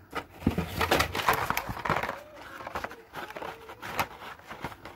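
Blister-carded Hot Wheels cars being pulled out of a cardboard case: card backs and plastic blisters rustling and clacking against each other and the cardboard dividers. The handling is busiest in the first couple of seconds, then thins to scattered clicks.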